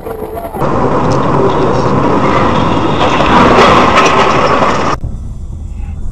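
Dashcam audio of a road crash: a loud, harsh scraping and crunching with a few sharp cracks, loudest near the end. It breaks off abruptly about five seconds in, leaving quieter low road noise.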